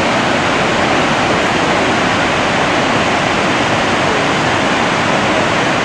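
River water rushing, a steady, even wash of noise.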